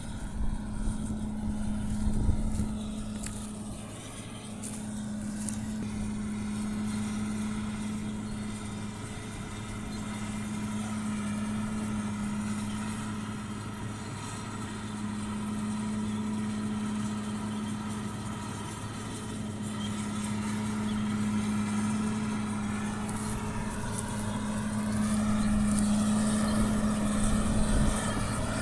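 Caterpillar D6R bulldozer's diesel engine running steadily under a light load while dozing sugarcane trash, its level swelling and easing every few seconds. A few sharp knocks come in the first couple of seconds.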